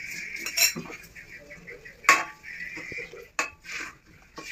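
Metal spoon stirring thick curry gravy in a metal kadai, scraping and striking the pan's side with a few sharp clinks, the loudest about two seconds in.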